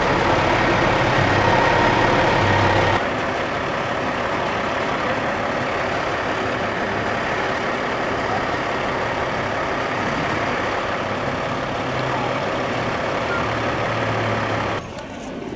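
Fire engine's diesel engine running steadily, a heavy drone with a low hum; it drops a little in level about three seconds in and again near the end.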